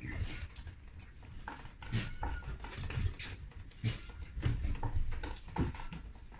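Animal paws pattering on a wooden deck, with irregular light clicks and occasional low thumps as the animals move about.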